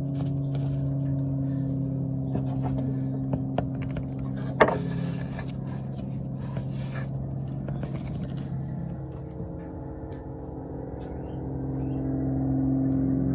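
A running engine's steady hum with a few light clicks and scrapes over it, and one sharp knock about four and a half seconds in. The hum drops a little around the middle and grows louder again near the end.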